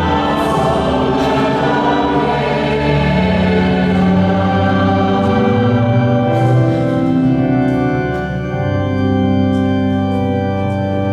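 Church organ and youth choir performing the closing bars of a sung psalm, held chords that change every second or two.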